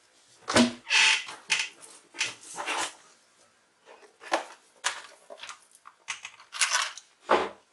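Irregular rustling and crinkling of plastic, with a couple of knocks, as a new laptop RAM module is handled and taken out.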